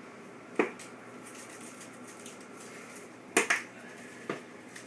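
Small hard kitchen items knocked and set down on a wooden tabletop: a sharp click about half a second in, a quick pair of clicks about three and a half seconds in, and a softer one near the end.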